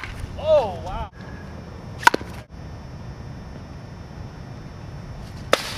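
A baseball bat strikes a baseball with a sharp crack and a brief ring about two seconds in. A shorter knock comes right at the start and another near the end. A short vocal exclamation follows the first knock.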